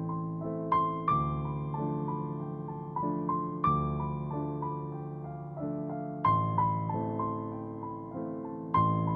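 Background music: a gentle piano piece, a slow melody of single notes over chords struck every two to three seconds.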